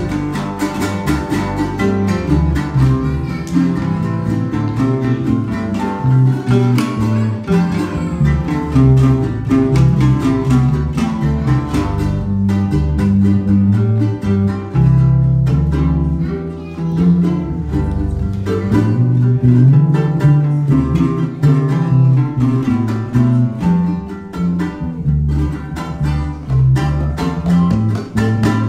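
Son jarocho string band playing an instrumental passage: rhythmically strummed acoustic guitar-type instruments over an electric bass line.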